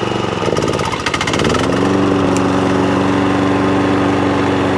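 John Deere walk-behind lawn mower's petrol engine running, warmed up after about five minutes. It runs unevenly for a moment, then its speed rises about a second and a half in and holds steady.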